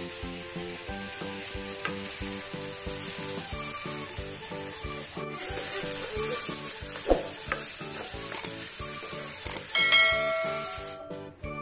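Chopped onions and ginger-garlic paste sizzling in oil in a frying pan, stirred with a wooden spatula, over background music with a steady beat. A short chime sounds near the end, and the sizzling cuts off abruptly soon after.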